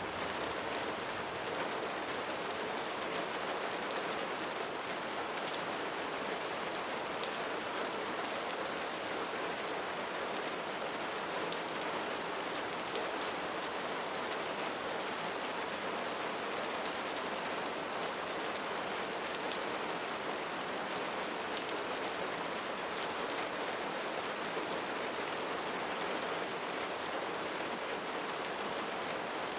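Steady rain falling on leaves, with many fine individual drop ticks over an even hiss.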